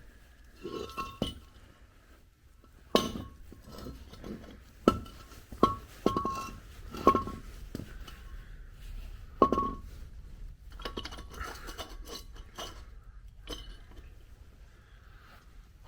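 Metal parts of a worn rear differential clinking and knocking together as it is taken apart by hand: about six sharp clinks, each with a brief ring, with quieter handling noise between them.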